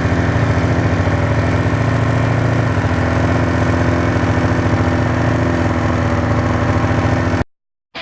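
Snowmobile engine running steadily at idle, a fast even pulsing with no revving, cut off abruptly near the end.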